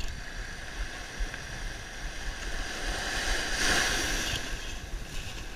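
Gentle ocean surf washing around the wader. A small wave foams in and swells loudest about three to four seconds in, then eases.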